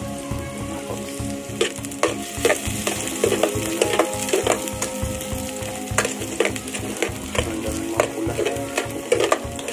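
Chopped garlic and onion sizzling in hot oil in an aluminium pot, with a spoon stirring them and knocking and scraping against the pot in sharp clicks from about a second and a half in.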